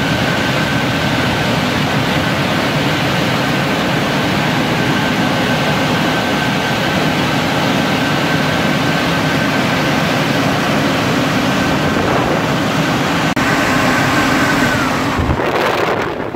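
Touchless car wash dryer blowers running loud and steady with a high whine. Near the end the whine falls in pitch and the blowers wind down as the drying cycle finishes.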